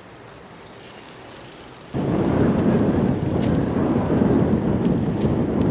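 A faint, even outdoor hiss for about two seconds, then a sudden jump to loud wind buffeting the microphone of a camera carried on a moving bicycle, a dense low rumble.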